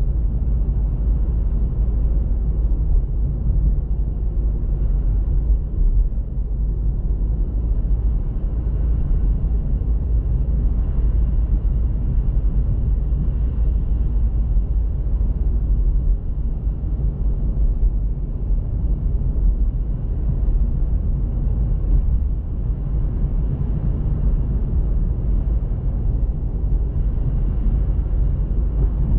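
Car on the move with a steady low rumble of engine and road noise, unchanging throughout.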